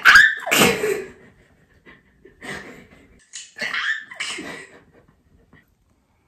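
Young women's wordless vocal sounds: a loud, sharp cry with a falling pitch right at the start, then several short breathy laughs over the next few seconds.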